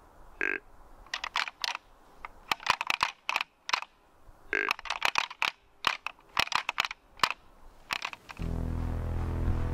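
Hard plastic clicking and knocking as a gloved hand handles and adjusts a black plastic mount strapped to a tree trunk, with two short squeaks among the clicks. Steady background music starts near the end.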